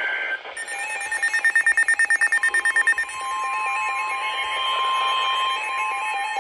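Electronic emergency-alert tones: about a second in, a rapid pulsing beep runs for about two seconds, then gives way to steady, overlapping warning tones that step up and down in pitch.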